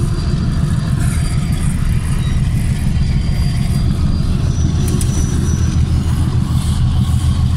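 Diesel locomotive engines running with a loud, steady low rumble.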